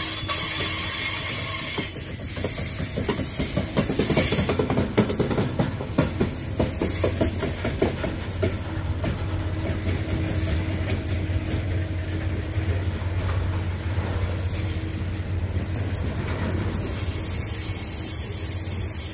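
Freight train of steel grain hopper cars rolling past at close range: a steady rumble of the wheels on the rails, with the rapid clicking and knocking of wheels over rail joints, busiest a few seconds in.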